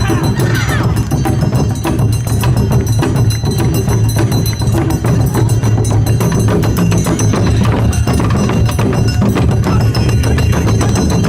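Awa Odori festival music: taiko drums and a ringing metal kane bell playing a fast, driving rhythm without a break.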